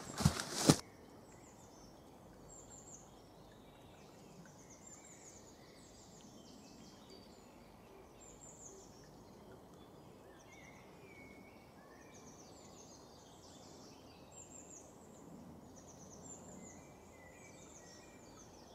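Woodland birds singing: many short, high chirps and trills over a faint steady background hiss. A brief loud rustle and knock of handling comes in the first second, then stops.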